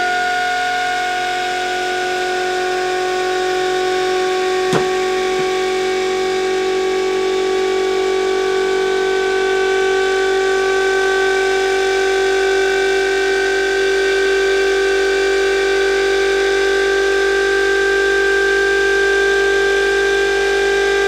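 Muller motor replication, a magnet rotor driven by coils switched through a Hall-effect sensor and power transistor, spinning at about 2600 rpm with a steady whine. The whine climbs slowly in pitch as the motor accelerates. One sharp click about five seconds in.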